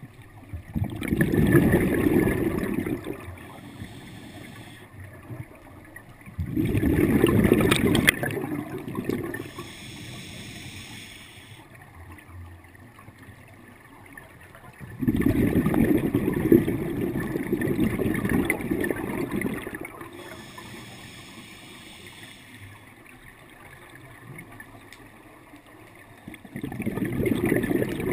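Scuba diver breathing through a regulator underwater: four long gurgling bursts of exhaled bubbles, each two to four seconds, with a shorter, quieter hissing draw on the regulator between them.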